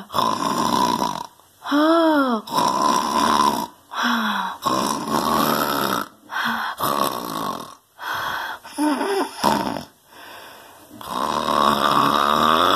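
A person snoring loudly, a run of separate drawn-out snores with short pauses between them, some with a pitch that rises and then falls.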